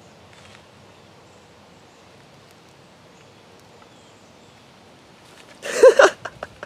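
Faint, steady outdoor ambience on a wooded riverside trail. A little before the end comes a short, loud pitched cry, like a voice calling out, followed by a few sharp clicks.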